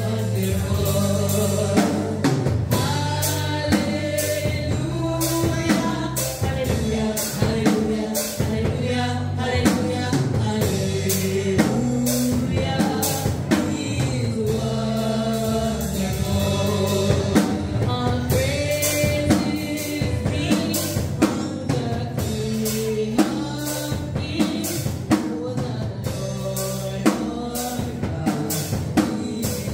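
A woman singing lead on a gospel praise song into a microphone, backed by keyboard and a steady drum beat.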